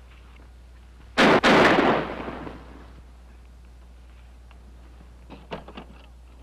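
Two gunshots in quick succession, each starting sharply, the second trailing off in a long echo over about a second.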